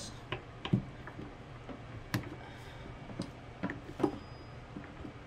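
Irregular light clicks and knocks of a stainless steel trim plate being slid over the bidet valve stems and pressed against the wall, the loudest about three-quarters of a second in.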